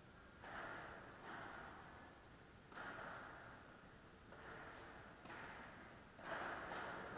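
Padel ball struck back and forth in a rally, six faint hits at uneven intervals of about a second, each ringing on briefly in the hall.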